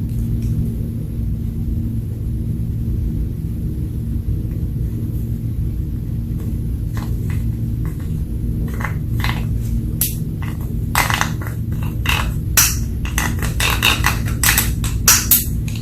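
Slime being worked by hand, giving a run of short, sharp pops and clicks that start about seven seconds in and come thicker toward the end, over a steady low hum.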